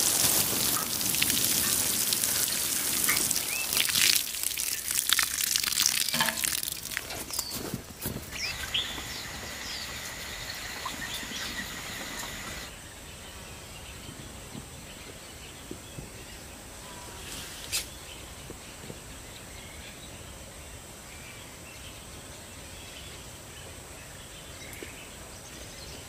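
A spray of water pattering onto loose garden soil, loud for the first several seconds and then ending. After it, a quieter outdoor background with birds chirping and a steady high whine.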